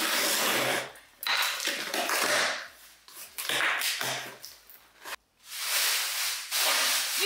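Cardboard shipping box being torn open: packing tape ripped off the seam and the flaps pulled back, heard as several separate ripping strokes of about a second each.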